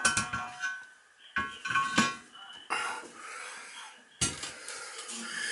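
Hard clinks and knocks, with short ringing tones at the start and about two seconds in, from toilet parts and hardware being handled during the install. Rougher scraping noise follows in the second half.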